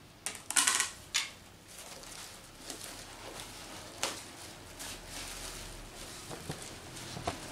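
Cardboard and plastic wrapping being handled and pulled apart: rustling and crinkling, with a few louder crackles in the first second or so and another about four seconds in.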